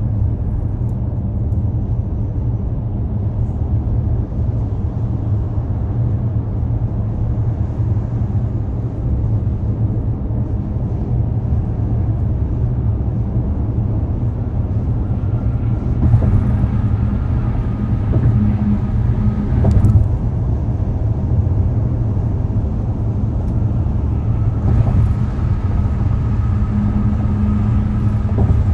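Steady low rumble of a vehicle on the move, with a faint high whine joining about halfway through and again near the end.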